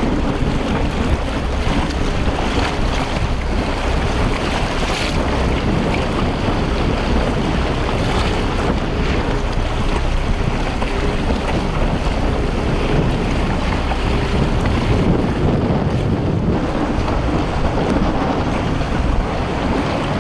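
Strong wind buffeting the microphone over choppy water, a loud, steady rush with waves splashing underneath.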